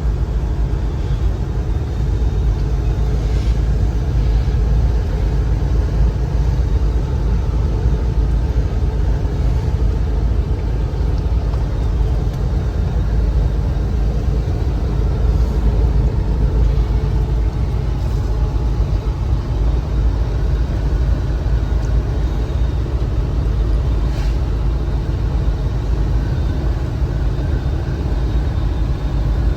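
A car driving, with a steady low road-and-engine rumble that does not let up.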